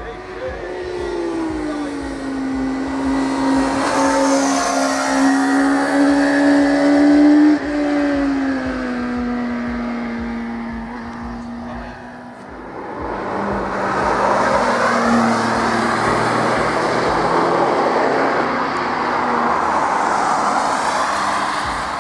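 Two high-performance vehicles passing at speed on a race circuit, one after the other. The first is a high-revving engine with a clear pitch that climbs as it nears, breaks sharply at a gear change about seven and a half seconds in, then falls away. From about thirteen seconds a second, rougher and noisier engine goes by.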